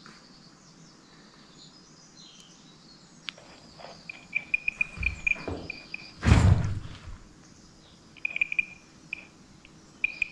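An electronic ghost-hunting detector chirping: rapid trains of short, high beeps on one pitch, coming in three bouts, with a loud bump about six seconds in.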